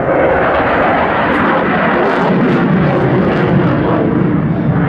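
Jet noise from a Dassault Rafale's twin Snecma M88 turbofans as the fighter flies its display manoeuvres; the sound turns deeper about two seconds in.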